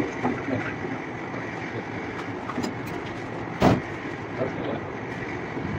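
Steady background noise with one loud thump a little past halfway: a person stepping up onto a wooden desk.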